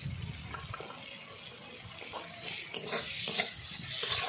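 A steel spatula stirs and scrapes spiced onion and tomato masala around a hot black iron kadai, with the oil sizzling. The sizzle and scraping strokes get louder about halfway through.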